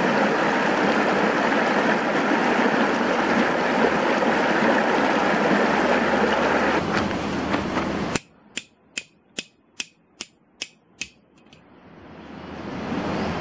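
Stream rushing over rocks, a steady noise that cuts off about eight seconds in. Then a tent peg is hammered into gravel ground: about eight sharp strikes, some 0.4 s apart, after which outdoor background noise swells back in.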